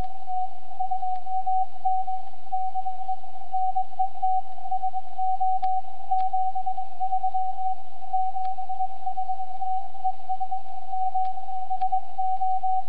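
A CW (Morse) signal received on an amateur HF transceiver tuned to the 30-metre band, heard through the radio's speaker as an almost unbroken beat tone of about 700 Hz. A low hum and a few faint clicks lie under it.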